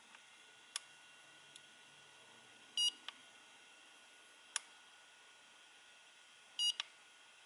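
AOMWAY Commander FPV goggles beeping twice, short and high, about four seconds apart, with several light clicks of their buttons being pressed. Underneath is a faint steady hum from the goggles' built-in cooling fan.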